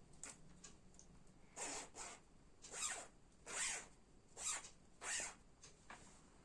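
A dress zip being run back and forth, five quick strokes of the slider along the teeth starting about one and a half seconds in.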